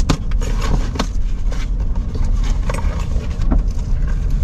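Steady low rumble of a car's engine running, heard inside the cabin, with scattered scrapes and clicks from a taped cardboard mailing box being handled and opened.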